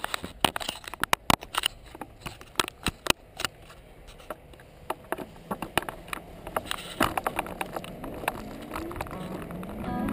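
Electric unicycle and its low-mounted camera rolling over a concrete garage floor: irregular clicks and knocks over a low rumble. Music starts to fade in near the end.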